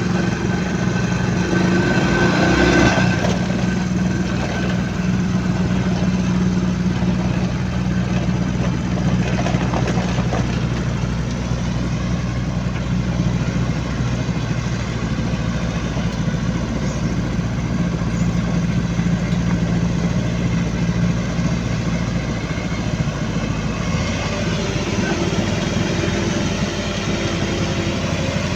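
Engine of a heavy construction machine running steadily at idle, with its pitch shifting slightly about three-quarters of the way through.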